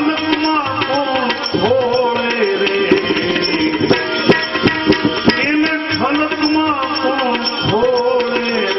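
Bhajan music: tabla playing a steady rhythm under a melody that slides and bends in pitch.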